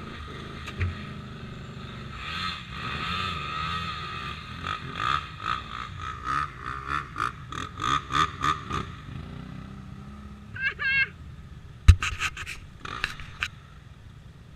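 ATV engine running with uneven revving, as a stuck quad is worked to get free, and a sharp knock about 12 seconds in.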